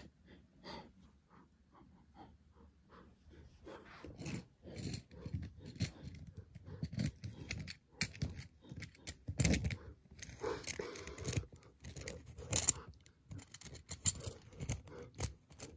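Light scattered scrapes, rustles and clicks of plastic toy animals and a handheld phone being moved over a shag carpet.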